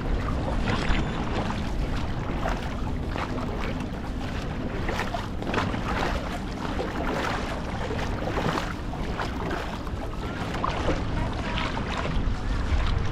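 Dragon boat paddles repeatedly catching and pulling through the water, heard as a run of short splashes, over a steady low rumble of wind on the microphone.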